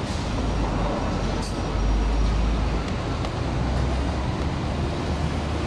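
Steady low rumble of heavy machinery with a constant wash of background noise; the low end swells and eases a little.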